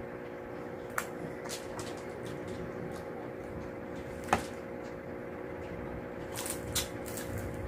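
Close-miked eating sounds: chewing, with a few sharp clicks and crackles as a fried daing na bangus (dried milkfish) is picked up and torn apart by hand, the loudest about four seconds in and a small cluster near the end. A steady low hum runs underneath.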